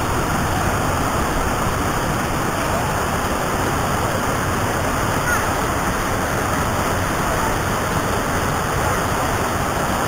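Mountain waterfall (the Aatsy waterfall) pouring into a gorge, its water falling onto rocks in a steady, unbroken rush.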